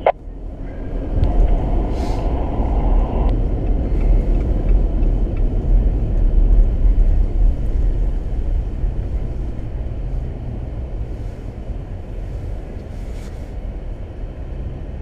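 Jeep Gladiator heard from inside the cab under way, a deep engine and road rumble. It swells over the first few seconds as the truck pulls away, then eases into a steadier drone.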